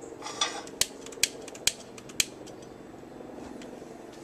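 A hand-held lighter clicked about four times in quick succession to light an outdoor gas stove burner, each click sharp and short, over a faint steady hum.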